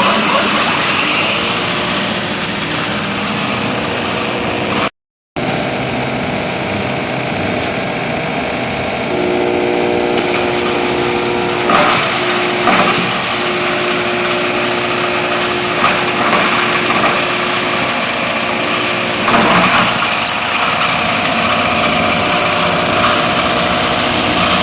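Bread-crumb grinding machine running steadily, its motor humming under the noise of bread being crushed into coarse breadcrumbs, with a few short louder knocks. The sound drops out briefly about five seconds in.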